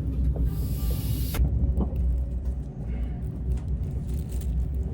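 Steady low rumble of a train heard from inside, with a hiss that cuts off suddenly about a second and a half in.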